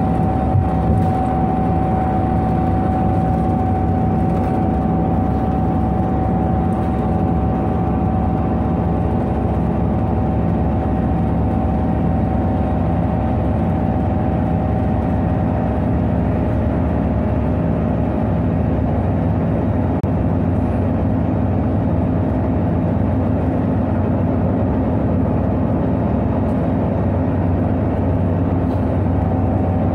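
Irisbus Citelis 18 articulated bus's IVECO Cursor 8 diesel engine running at a steady, even pitch, with a thin steady whine over it that fades out about halfway through.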